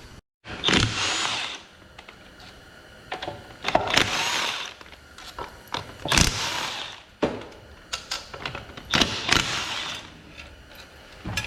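A power tool run in four bursts of about a second each, with quiet gaps between them.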